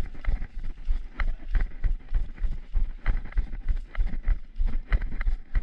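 Running footsteps on a dirt woodland path, quick even strides about three a second, each one jolting the body-worn camera with a heavy thump and light clicking in between.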